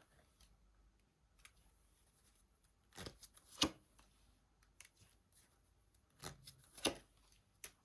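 Tarot cards being handled and laid out: a few short card snaps and rustles, in clusters about three seconds in and again near seven seconds.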